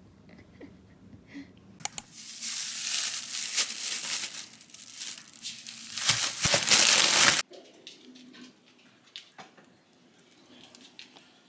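Thin plastic grocery bags crinkling and rustling as groceries are handled and lifted out, for about five seconds, stopping abruptly. A few faint clicks follow.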